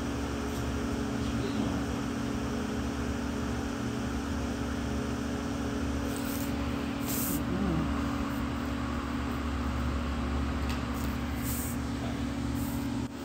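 Steady ventilation hum with a fixed low drone, with a few brief faint rustles.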